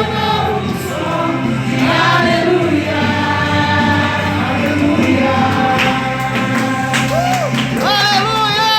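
Gospel worship music: a group of voices singing together over instrumental backing.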